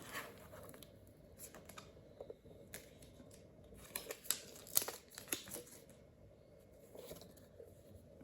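Mac Mini box and its packaging being handled and opened: scattered crinkles, tearing and light taps, the loudest cluster about halfway through.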